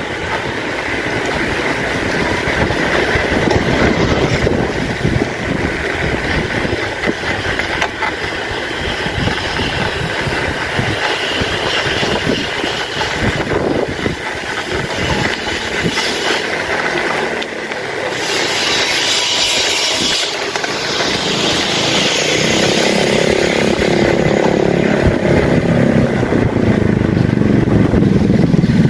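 Bicycle rattling and clattering as it rolls over a rough, cracked concrete road, with a steady rush of road noise. A motor scooter's engine grows louder over the last few seconds as it approaches.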